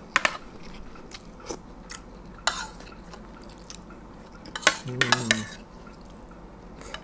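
Metal spoons clinking and scraping against ceramic plates in a few scattered strikes during a meal, with a cluster of clinks and a brief voice sound about five seconds in.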